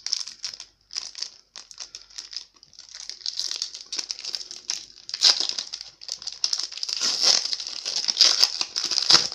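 Foil wrapper of a baseball-card pack crinkling and tearing as it is pulled open by hand: short bursts of rustling at first, then denser, louder crackling through the second half.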